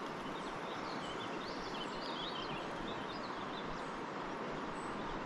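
Faint birdsong, short high chirps through the first few seconds, over a steady outdoor hiss.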